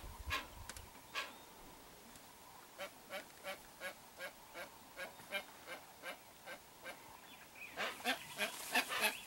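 Hoatzins calling: a regular series of short, rough calls about three a second, growing louder and more crowded near the end as several birds call together.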